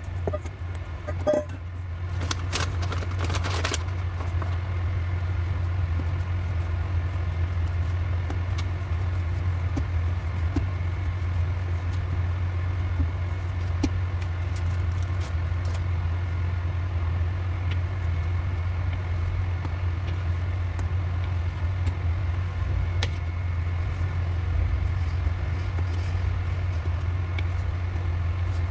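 A steady low mechanical drone, engine-like, with a brief noisier stretch of clicks about two to four seconds in.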